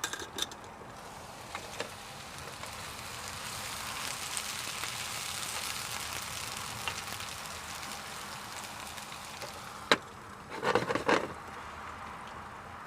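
Mushrooms frying gently in a Ridgemonkey pan on low heat, a soft steady sizzle that swells a little in the middle. A sharp click comes near the end, followed by a brief burst of louder clattering sound.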